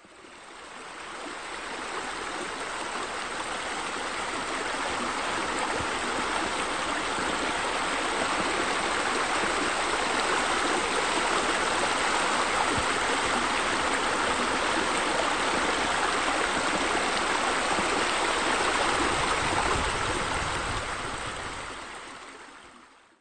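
Steady rush and splash of water falling from a pool's raised-wall waterfall spouts into the pool. It fades in over the first few seconds and fades out near the end.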